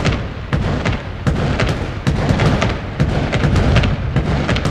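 Fireworks going off: a boom about once a second, with dense crackling between.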